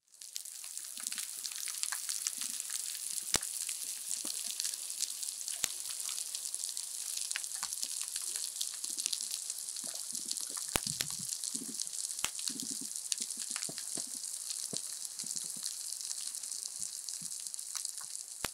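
Underwater coral reef soundscape: a dense, steady crackle of countless tiny clicks, typical of snapping shrimp, with scattered louder sharp snaps and short low pulses throughout.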